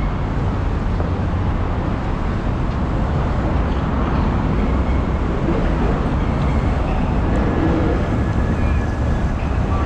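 Steady city street ambience, mostly a low traffic rumble.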